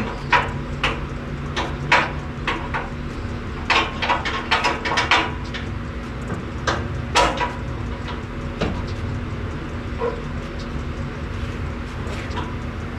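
Clinks and knocks of metal tools and parts as someone works in the engine bay of a 1949 Willys Jeep pickup. A quick run of them comes in the first several seconds, then only a few, over a steady background hum.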